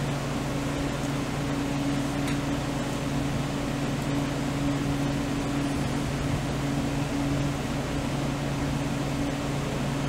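Steady machine hum with a constant low drone and an even hiss, unchanging throughout; a faint click about two seconds in.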